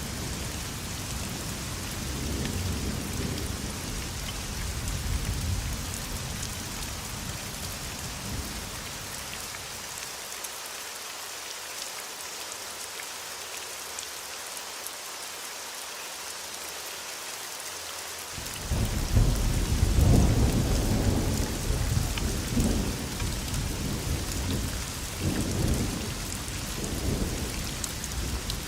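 Thunderstorm: steady heavy rain with rolling thunder. A low rumble dies away in the first third, then about two-thirds of the way in thunder breaks suddenly and loudly and rolls on in waves almost to the end.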